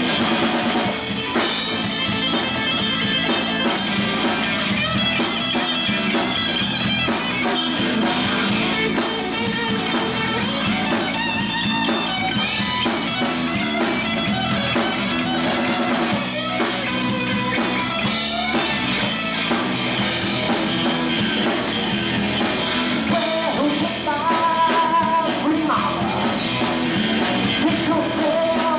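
Live rock band playing loud, steady rock: an electric guitar taking the lead over bass guitar and a drum kit.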